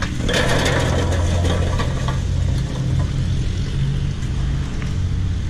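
Hot charcoal poured from a Weber chimney starter into a Slow 'n Sear basket, the coals tumbling and clattering out in a rush for the first couple of seconds, then a few scattered clinks. Under it runs a steady low mechanical hum, the loudest part of the sound.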